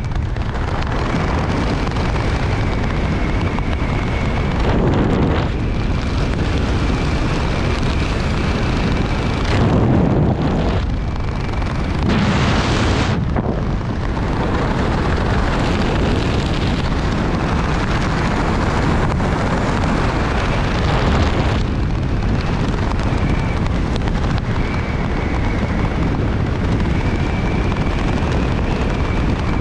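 Loud, steady wind rush buffeting the microphone, a continuous rumbling roar with small swells and dips, like the airstream in skydiving freefall.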